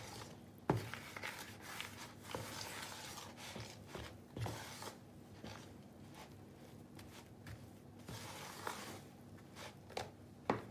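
A metal spoon stirring flour into a sticky bread dough in a plastic bowl: irregular soft scraping and rustling, with a few sharp knocks of the spoon against the bowl.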